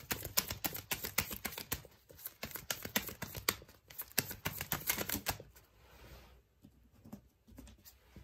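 A deck of tarot cards being shuffled by hand, a fast run of sharp papery clicks, several a second, that stops about five and a half seconds in. Quieter handling of the cards follows, with a few soft clicks as cards are laid down near the end.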